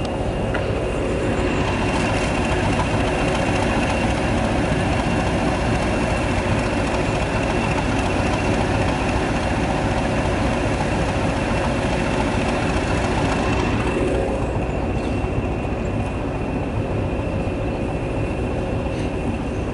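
Class 20 diesel locomotive's English Electric engine running, a steady drone with a high whistle over it; the higher part drops away about fourteen seconds in.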